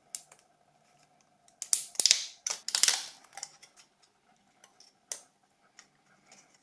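A few light clicks and two short scraping noises, about two and three seconds in, from hand work with small tools on a phone battery pack as a cell is freed.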